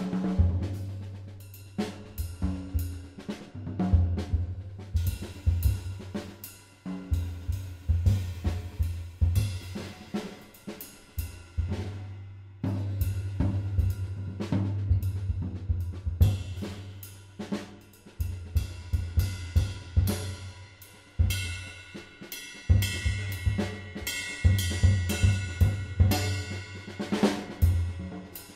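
Background music with a steady beat: a drum kit with bass drum, snare, hi-hat and cymbals over a deep bass line.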